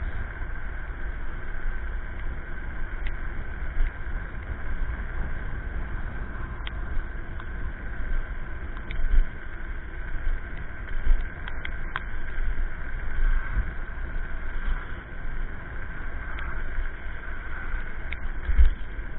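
Riding an electric scooter: wind buffets the microphone in uneven low gusts over steady road rumble, with a steady high whine and a few sharp clicks and rattles from bumps.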